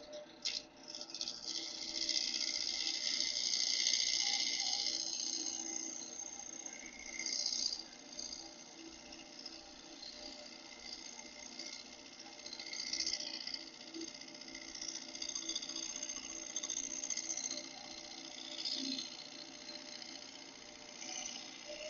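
Wood lathe running with a turning tool worked against the spinning wood, a scraping hiss that swells and fades as the cut goes on. It is loudest for a few seconds near the start, and a faint steady hum from the lathe lies underneath.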